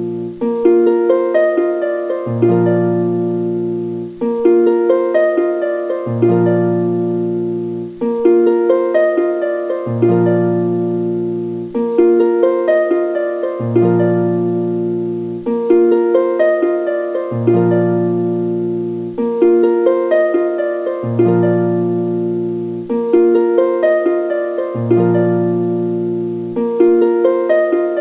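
Background music: a short harp-like plucked-string melody looping over and over, repeating about every two seconds.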